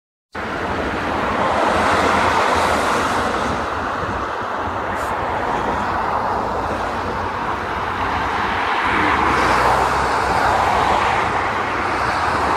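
Steady road-traffic noise with wind rumbling on the microphone, swelling a little twice as vehicles pass.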